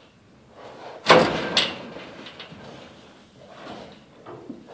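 Steel livestock gates and an aluminum stock trailer banging as cattle push against them: a loud metal bang about a second in, a second clang half a second later, then fainter rattling.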